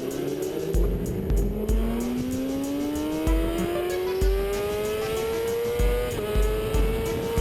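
Music with a heavy bass beat, over a vehicle engine whose pitch climbs steadily as it accelerates, dropping briefly about six seconds in as if shifting gear.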